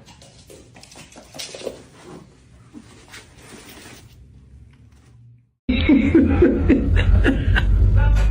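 Faint rustling and light clicks for about five seconds, then a sudden loud burst of a person laughing, with heavy low rumble on the microphone.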